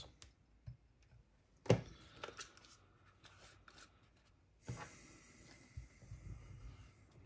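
Hands handling a plastic cassette walkman on a cloth: one sharp click under two seconds in, then soft rubbing and a few small taps as the player is turned over and set down.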